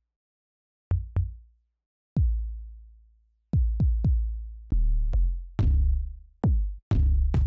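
Electronic kick drum samples from FL Studio's included library, auditioned one after another: about a dozen single kicks at uneven spacing. Each is a sharp click with a long, low, pitched tail that fades out, and some are cut short by the next. A few of the later ones have a noisier, longer tail.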